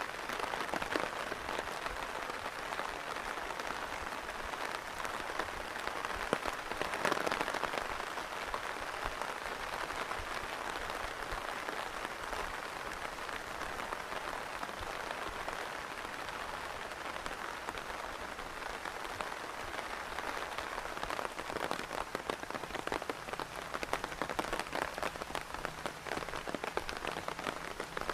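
Steady rain falling, a dense patter of individual drops over an even hiss. It swells briefly about seven seconds in, and the drop patter grows sharper again near the end.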